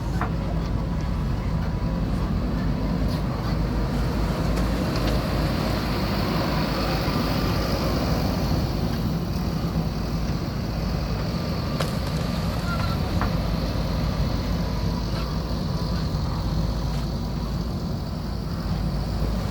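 JCB backhoe loader's diesel engine running steadily under work, a constant low rumble with a few faint knocks.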